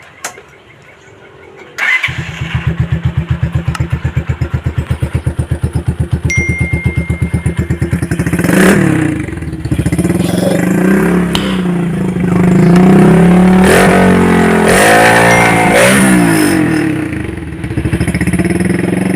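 Motorcycle with an aftermarket Gen 1 exhaust canister starting about two seconds in and idling with an even, pulsing beat. It is then revved up several times, held high for a couple of seconds, and blipped again before settling back to idle near the end.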